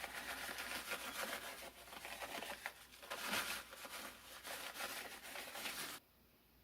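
Light rustling and crinkling as shredded cheese is sprinkled by hand over a casserole. The sound cuts off suddenly near the end.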